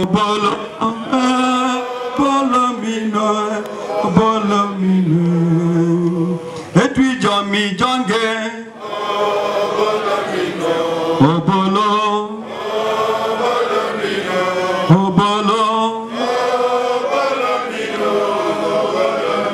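A man singing a slow anthem into a hand-held microphone. The melody moves in long held notes, with short breaks between phrases.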